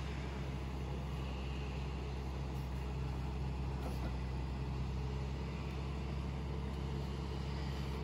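Bulk feed tanker truck's engine running steadily, a low even drone that neither rises nor falls.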